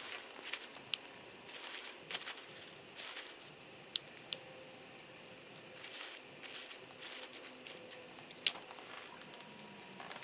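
Wood fire crackling in a stainless mesh-bottom fire pit, with short hissing flurries and a few sharp pops: one about a second in, two close together around four seconds in, and one more near the end.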